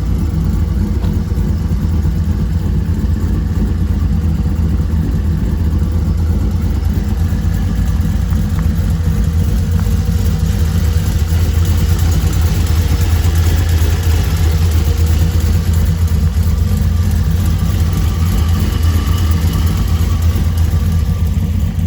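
Loud exhaust of a cammed Pontiac G8's LS V8 running steadily with a deep drone, swelling a little partway through.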